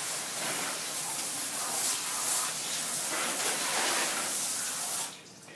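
Water hose spraying onto a golf cart's seat and body: a steady hiss of spray that stops near the end.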